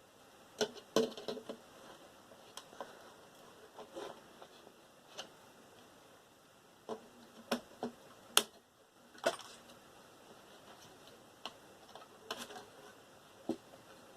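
Scattered sharp clicks and light knocks of small hard parts and tools being handled while a desktop computer is taken apart. The loudest come in a cluster around the middle.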